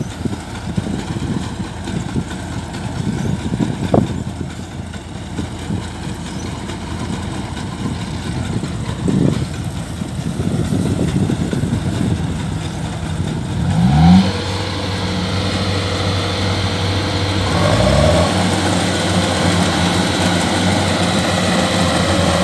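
Kubota combine harvester diesel engines running under load while one combine tows another out of the mud. The engine revs up sharply about two-thirds of the way in and again a few seconds later, then holds a steady, higher, louder pitch.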